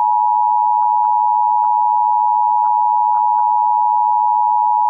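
Emergency Alert System two-tone attention signal, 853 Hz and 960 Hz sounding together as one loud, steady tone. It is the alert tone that announces an EAS message, here the Required Monthly Test.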